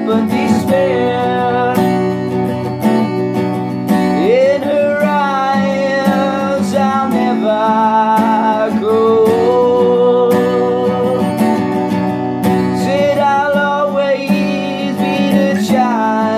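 Strummed acoustic guitar, capoed up the neck, playing chords throughout. A man's singing voice comes in over it about four seconds in.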